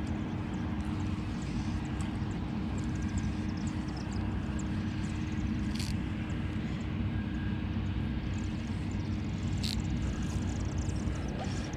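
A steady low mechanical drone with a constant hum, like a distant engine or machine. Two short sharp clicks stand out, about six seconds in and again near ten seconds.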